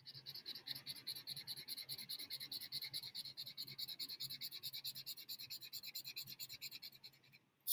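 Felt-tip marker scratching on paper as a heart is coloured in with quick back-and-forth strokes, about six or seven a second, which stop near the end. A single brief knock follows at the very end.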